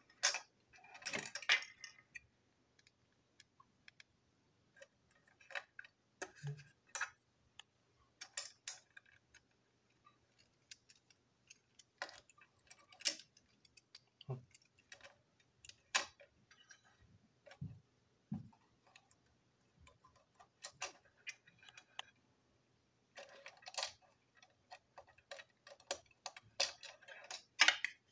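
Irregular light clicks and taps of small plastic and metal parts, the wheelsets, chassis and body of a toy railway truck, being handled and fitted together by hand. The clicks come thickest at the start and again near the end.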